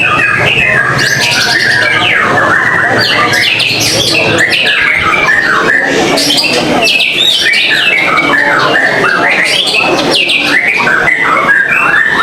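White-rumped shamas (murai batu) singing, a dense, unbroken tangle of overlapping fast whistled phrases and chirps.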